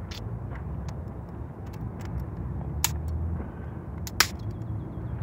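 Wind on the microphone making a steady low rumble, with a few sharp knocks and snaps of dry sticks being gathered for firewood. The loudest snap comes about four seconds in.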